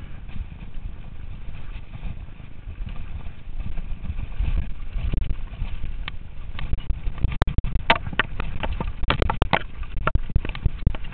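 Wind rumbling on a helmet-mounted camera's microphone as a mountain bike rides down a dirt track, with the bike rattling and clacking sharply over bumps at irregular intervals from about six seconds in.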